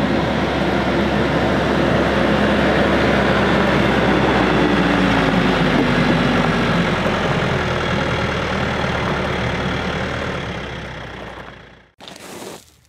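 TYM 574 tractor's diesel engine running steadily as the tractor drives up, fading about ten seconds in and breaking off abruptly near the end.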